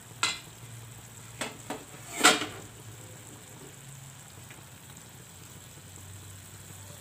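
Cabbage, potato and pea curry sizzling softly in an uncovered frying pan, a steady hiss. Four sharp metal clinks against the pan in the first two and a half seconds, the last and loudest about two seconds in.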